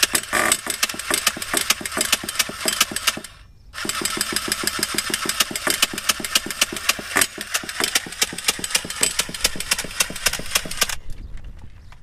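HPI Savage X 4.6 big-block nitro engine being cranked by its starter in two long bursts, a rapid even beat, with a short break about 3 seconds in and a sudden stop near the end. The engine turns over but does not catch, and it needs priming again.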